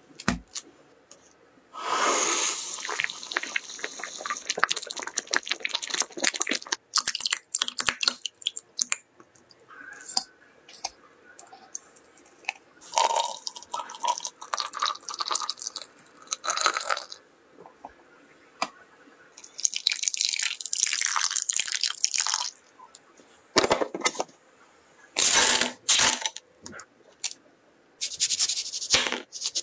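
Food-preparation sounds: liquid poured and splashing into a glass jug where a tea bag steeps, small knocks and clinks on the board and glassware, and near the end a knife cutting into the thick peel of a citrus fruit.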